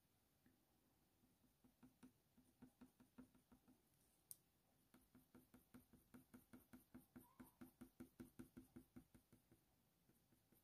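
Faint, quick strokes of a Faber-Castell Polychromos colored pencil on hot-press watercolour paper, short back-and-forth shading at about five strokes a second. The strokes come in two runs with a short pause between them, and a single sharper tick falls in that pause.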